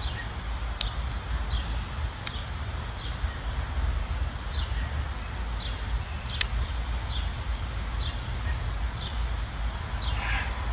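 A bird repeating a short high chirp about every three-quarters of a second, over a steady low rumble, with a few faint clicks.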